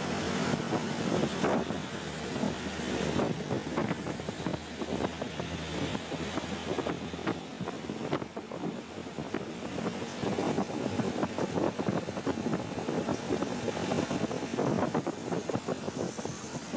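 Road traffic with diesel trucks driving past, a steady engine and tyre noise with a rough, crackly texture.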